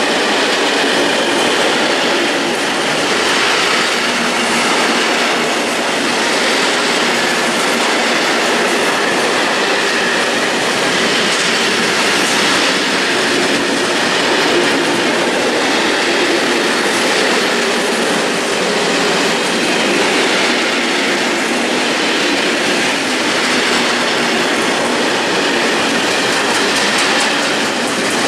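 Freight train of Ecco-Box container wagons rolling past close by: a steady, loud rumble and clatter of steel wheels on the rails.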